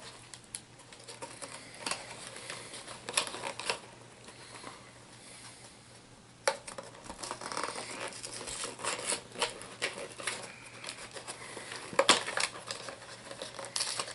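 Crinkling, rustling and sharp snapping of a HeroClix booster pack's packaging being pulled and torn open. The glued seal is holding too well, which makes it hard to open. The loudest snaps come about six and a half seconds in and again about twelve seconds in.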